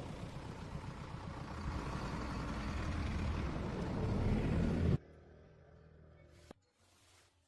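A car engine running, a low rumble growing louder over about five seconds, then cut off suddenly. A single faint click follows, then near quiet.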